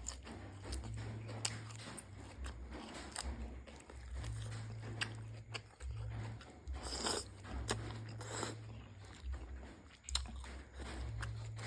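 Close-up eating noises from a bowl of pork noodle soup: chewing with many sharp little clicks, and a couple of longer noisy bursts about halfway through.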